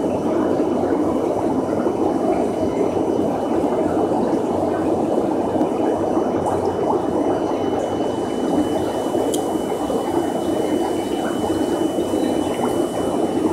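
Aquarium water bubbling and trickling steadily, with a faint steady high whine.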